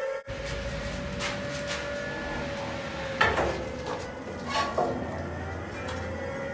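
A series of irregular metallic clanks and knocks, some ringing briefly, the loudest about three seconds in, over a steady low hum and a faint held tone.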